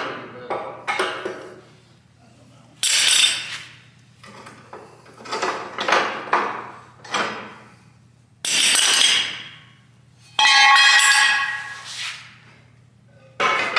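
Cut-off section of a steel truck frame rail being worked loose and taken down: a series of metal clanks, scrapes and bangs. The loudest come about three, nine and eleven seconds in, the last ringing for over a second.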